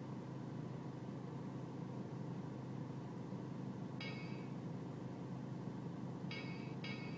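BMW E46 320Cd's four-cylinder diesel engine idling with a steady low hum, on an idle the owner calls rough. Short electronic beeping tones sound about four seconds in and twice more near the end.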